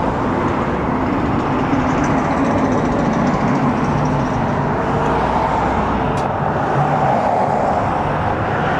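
Steady road traffic noise from cars and trucks passing on a highway, with low engine hum swelling now and then as vehicles go by.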